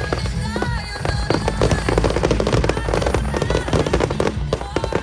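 Fireworks bursting and crackling in quick succession over loud accompanying music from the display's soundtrack.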